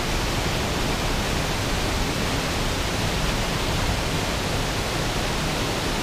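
Steady rushing of a small waterfall pouring into a rock pool.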